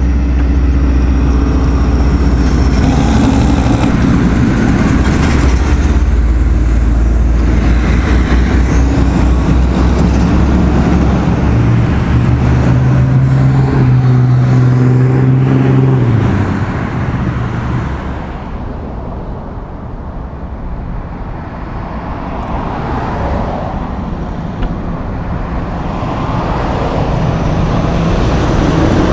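Loaded logging trucks passing on a highway: heavy diesel engines and tyre noise with a steady engine hum, loud for the first half. It drops to quieter traffic about two-thirds of the way through, then rises again as another truck draws near near the end.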